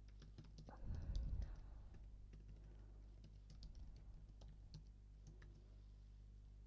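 Faint typing on a computer keyboard: scattered, uneven key clicks as a short line of text is typed. There is a brief low rustle about a second in.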